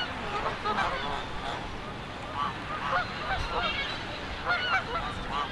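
A flock of Canada geese honking, with many short calls overlapping one another.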